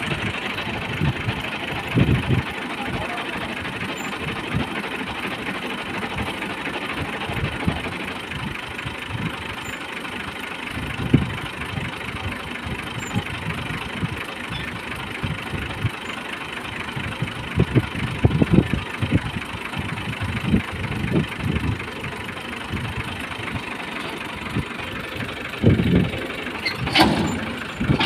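Tractor engine running steadily, driving a wheat thresher through its PTO shaft and belt pulley, with irregular low thumps.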